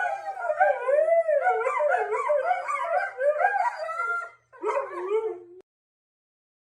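Dog howling and whining, its pitch sliding up and down without a break, with a short pause about four and a half seconds in; the sound cuts off suddenly about five and a half seconds in.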